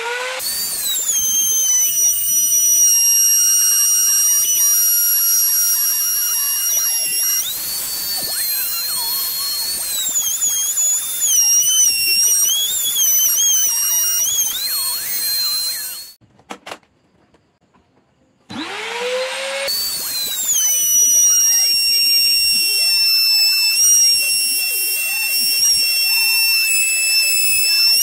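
Handheld electric trim router routing a groove in plywood: a steady high motor whine with the bit cutting wood, its pitch shifting as the load changes. It stops partway through, falls quiet for a couple of seconds, then spins up again with a rising whine and goes back to cutting.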